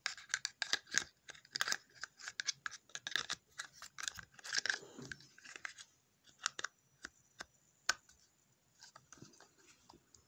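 Folding trauma shears being unfolded and worked: a rapid run of sharp metallic clicks and snips from the blades and pivot for about five seconds, then sparser clicks with one sharp click near eight seconds.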